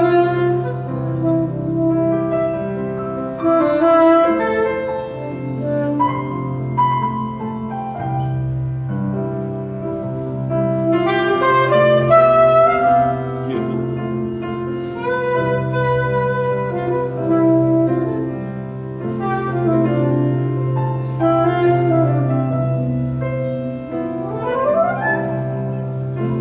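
Live jazz: a saxophone plays an improvised melody over piano accompaniment, with a quick rising run near the end.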